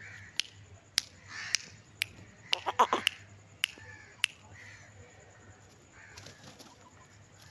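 Chickens giving short calls, with sharp clicks about every half second in the first four seconds and a tight cluster of them near the three-second mark.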